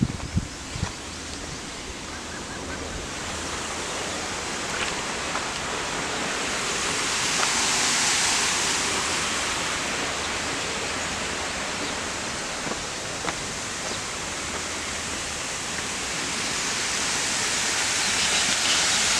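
Water rushing out through the sluice gates of a canal dam: a steady hiss that swells about halfway through and again near the end. Only a small flow is being released.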